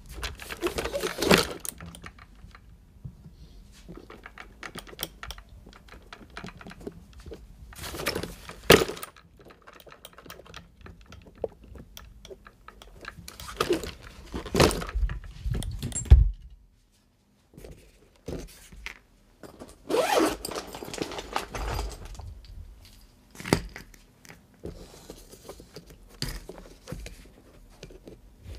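Tools and the RC crawler's wheels being handled on a workbench: irregular clatter, scraping and knocks as parts are picked up, set down and worked on, with short quiet gaps between.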